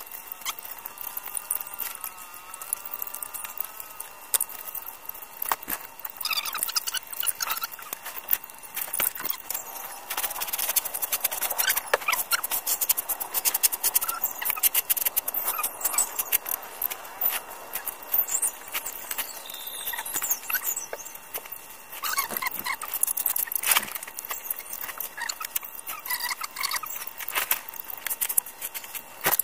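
Shovel and hand scoop scraping and digging through dry rice-hull litter mixed with chicken droppings: a continuous run of crunchy scrapes and rustles. A wavering squeal sounds in the first few seconds, and a faint steady high tone runs underneath.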